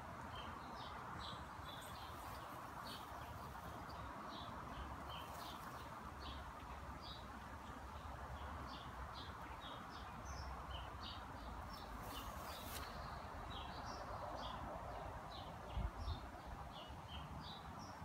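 A small bird chirping over and over in short high notes, about two or three a second, over a steady outdoor background hiss. A couple of soft low thumps near the end.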